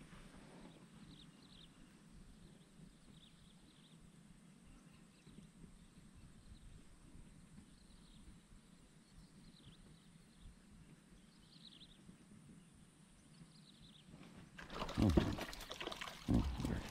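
Quiet swamp ambience with a small bird's short, falling chirps every couple of seconds. Near the end, two loud bursts of water splashing at the surface, about a second apart.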